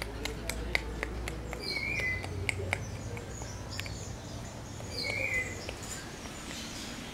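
A bird chirping a short, repeated call about every three seconds, heard twice, with sharp clicks and taps scattered through the first few seconds.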